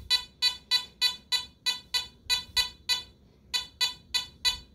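Teknetics Omega 8500 metal detector giving short, high-pitched target beeps, about three a second, as a large silver ring is swept past its coil in an air test. The beeps stop briefly about three seconds in, then resume.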